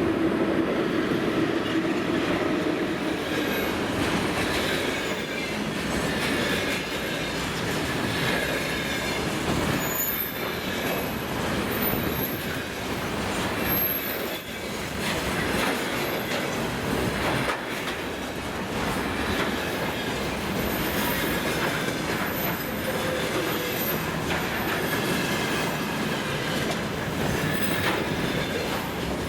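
Container freight train rolling through at speed: a steady rumble of steel wheels on the rails with repeated clicks over rail joints. Thin high wheel squeals come and go.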